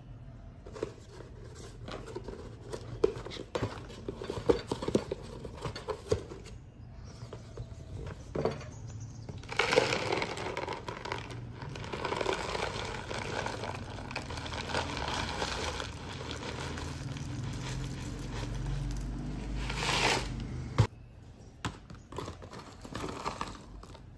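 Packaging crinkling and small handling clicks, then milk pouring steadily from a carton into a glass bowl for about ten seconds, ending with a sharp click, followed by more crinkling of a plastic granola bag.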